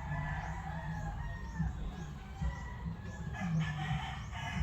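A rooster crowing, one drawn-out call in the first second and another pitched animal call near the end, over a steady low rumble.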